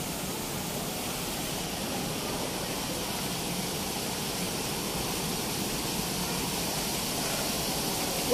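Steady, even rushing background noise, with no distinct events.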